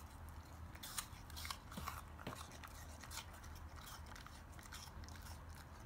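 Samoyed biting and chewing a slice of raw apple, a quick run of crisp crunches that thins out towards the end.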